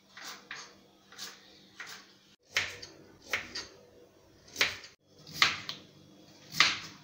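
Kitchen knife knocking on a wooden cutting board as carrots and then a potato are sliced by hand. About a dozen sharp, irregular knocks, louder from about two and a half seconds in.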